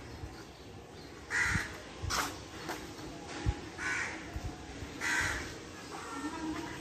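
A crow cawing: three short caws spread over a few seconds, with a few faint clicks in between.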